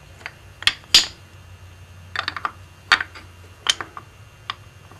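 Wooden printer's furniture and type blocks being set into a chase, clacking and knocking against each other and the frame in a string of sharp, uneven knocks. The loudest comes about a second in.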